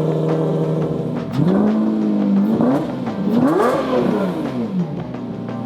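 Lamborghini Murcielago's V12 engine running steadily, then revved twice: the pitch climbs and holds, dips, then climbs higher and falls back to a steady note.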